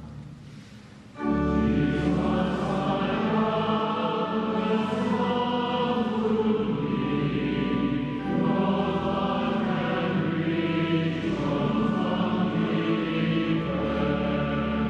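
Choir singing a hymn, coming in about a second in after a short lull.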